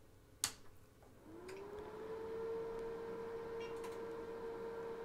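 A sharp click as the OWON P4305 lab power supply is switched back on. About a second later its cooling fan spins up with a rising hum that settles into a steady tone.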